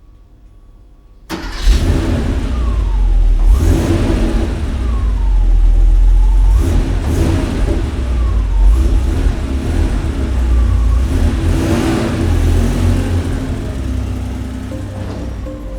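Car engine bursting in suddenly and revving, a heavy low rumble with its pitch rising and falling, as in a recorded sound effect.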